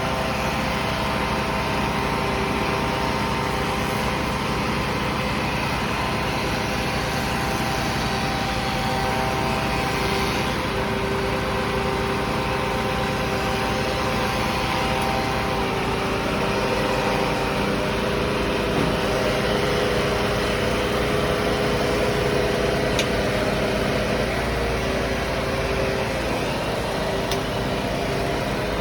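Heavy equipment engine running steadily, with a whine of several steady tones that shifts in pitch about halfway through.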